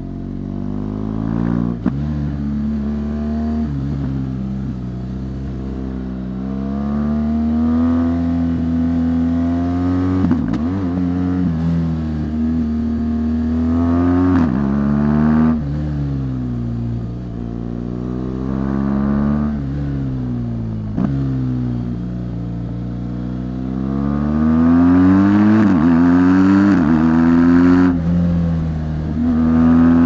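2017 BMW R1200 GS Rallye's boxer-twin engine through its stock exhaust, heard from the rider's seat. The revs rise and fall repeatedly, with several sudden drops in pitch at gear changes, and it climbs hardest and loudest in a long rise near the end.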